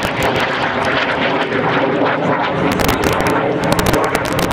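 Twin turbojet engines of a Canadair NF-5 jet flying overhead in a steady, loud roar, with many short sharp crackles through it.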